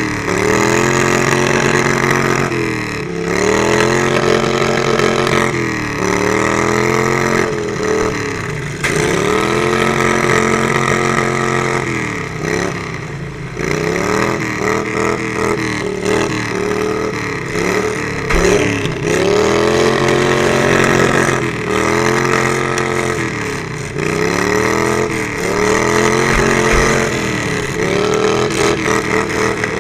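Riding lawn mower engine racing, its pitch rising and falling every two to three seconds as the throttle is opened and eased off.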